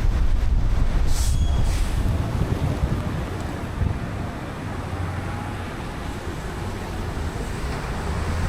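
A car driving on a wet road: steady low rumble of engine and road noise with a haze of tyre hiss, and a brief louder hiss about a second in.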